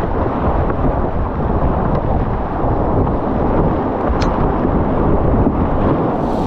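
Loud, steady rushing and rumbling of whitewater on the Bhote Koshi river, with a single faint tick about four seconds in.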